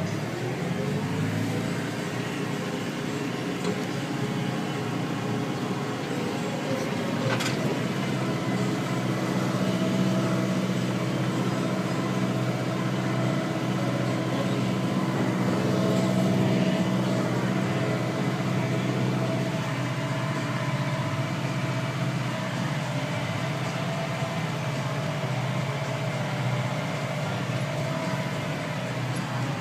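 New Holland T6020 tractor's diesel engine running steadily under ploughing load, revving up in the first second before settling to an even drone.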